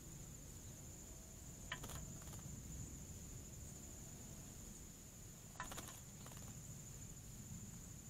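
A steady high-pitched insect trill runs throughout, with two short flurries of splashing, about two seconds in and again near six seconds, as a male northern cardinal bathes in a shallow dish of water.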